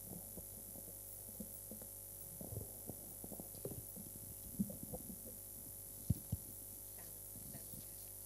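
Steady low electrical hum, with scattered faint knocks and rustles of handling and two sharp clicks about six seconds in.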